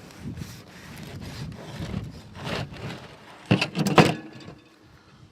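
A homemade machete sawing through a crusty damper loaf with uneven scraping strokes, then a quick cluster of sharp knocks about three and a half seconds in.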